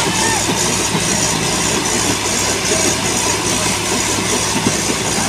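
Diesel tractor engines running steadily under load as two tractors pull against each other through a connecting bar.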